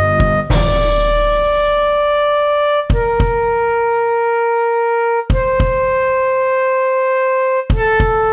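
Composed music: a flute plays a slow melody of long held notes, each about two and a half seconds, stepping down and then back up. A sharp percussion hit and a low chord that fades mark each note change.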